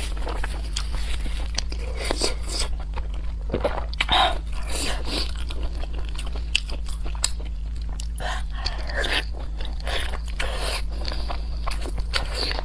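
A person biting and chewing food close to the microphone: many short crunches and wet mouth clicks at an irregular pace, over a steady low hum.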